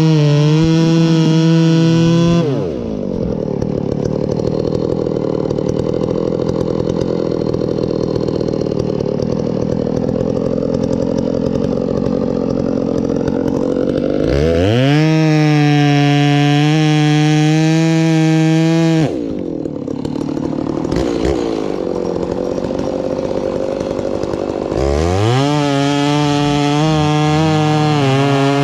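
Muffler-modded Stihl MS390 chainsaw bucking oak logs: it screams at full throttle, then drops in pitch and bogs under load through a long cut of about twelve seconds. It revs free again, sags into a lower, rougher stretch, and climbs back to full revs near the end.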